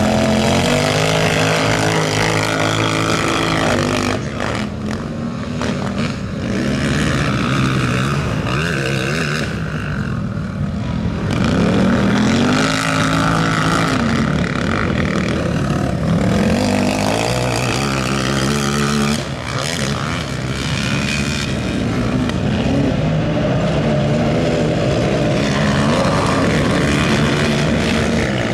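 Racing quad engines of the over-450 cc class revving hard as two quads chase each other round a dirt track, the pitch climbing under acceleration and dropping back again and again.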